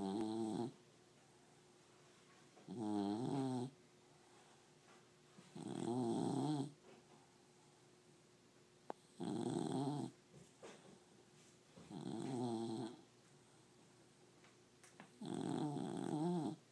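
Beagle snoring in his sleep: six snores about three seconds apart, each about a second long with a wavering pitch.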